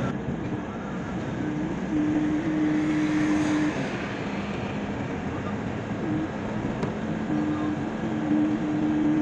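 Car driving along an open road, heard from inside the cabin as steady road and engine noise. A few long held musical notes sound over it, changing pitch now and then.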